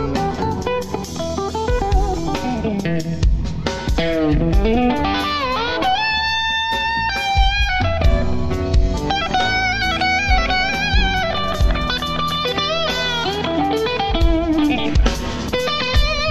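Live instrumental rock: a lead electric guitar over bass guitar and drums. The guitar swoops down in pitch and back up about three to five seconds in, then holds long, wavering notes, as from whammy-bar bends with vibrato.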